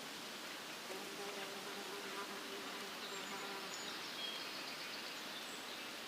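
A flying insect buzzing with a steady hum, which fades after about four seconds. Constant outdoor background hiss lies under it, and a few faint, short, high chirps come later.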